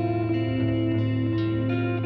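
Instrumental background music led by guitar, with melody notes changing over a held bass note.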